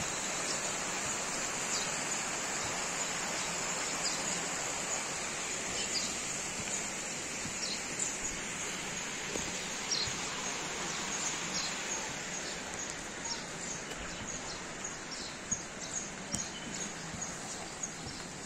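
Steady rush of river water flowing down a concrete channel, with small birds chirping over it. The water grows a little quieter in the second half while the chirps come more often.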